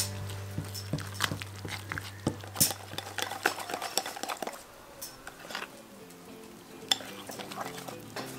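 Wire whisk clinking and scraping irregularly against a ceramic mixing bowl while stirring thick dumpling batter, with faint background music under it.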